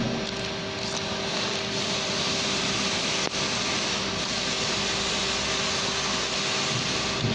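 Steady mechanical drone of running packaging machinery, a constant hum under an even rushing noise. A brief click about three seconds in.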